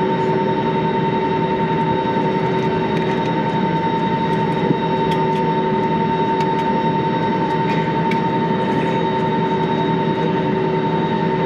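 Steady cabin noise inside an Airbus A320neo just after arrival: an even rush of air and machinery with a constant high whine running through it. There are a few faint ticks and one small knock a little under five seconds in.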